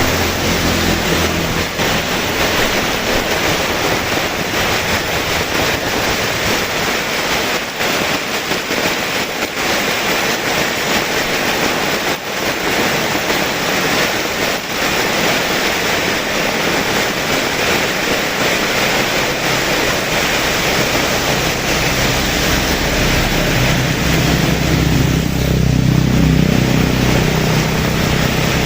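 Heavy rain falling steadily, a loud, even hiss. A low rumble swells in underneath near the end.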